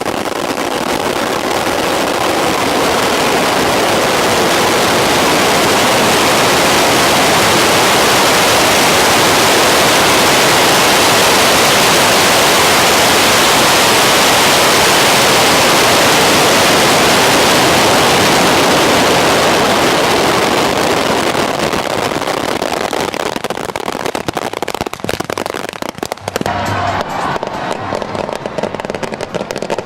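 A mass launch of fireworks rockets: a dense, continuous whooshing hiss that starts abruptly and holds for about twenty seconds, then thins out into scattered bangs and crackles.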